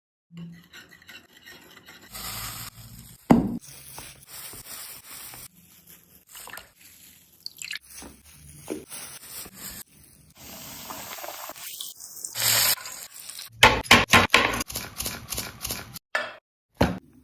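Close-up food-preparation sounds cut one after another: scraping, squishing and stirring, then a quick run of sharp knocks a little past the middle.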